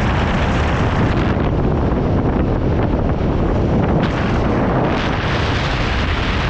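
Wind buffeting the microphone of a camera held outside the window of a moving Mahindra Bolero Pik-Up, a loud, steady rumble with the pickup's road and engine noise underneath.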